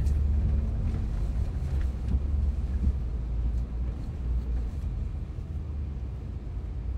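Steady low road rumble inside a moving car's cabin.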